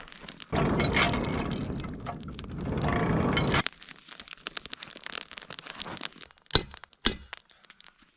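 Charcoal fire crackling and popping, with a loud rush of air noise lasting about three seconds from half a second in. Two sharp, loud cracks come about half a second apart near the end.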